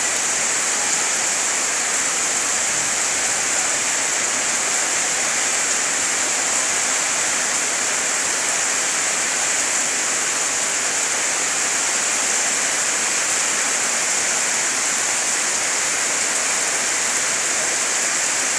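Heavy rain pouring down steadily: a dense, even hiss with no breaks.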